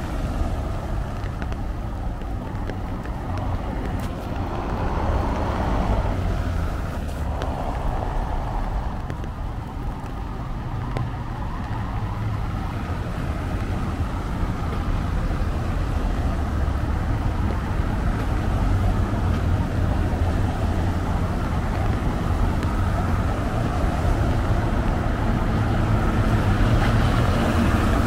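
Steady city road traffic: a low rumble of engines and tyres, with a vehicle passing about five seconds in, and the traffic growing louder over the last half.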